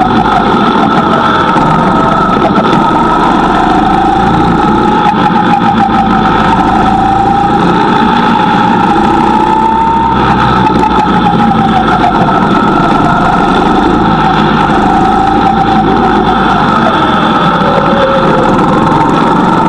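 Go-kart engine running loud and steady, its note climbing and dropping every few seconds as the kart is driven, accelerating and easing off.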